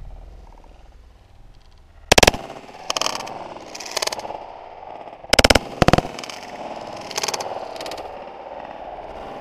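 Shotgun shots at ducks: one loud blast about two seconds in, then two more close together about five and a half seconds in, with fainter sharp reports between them.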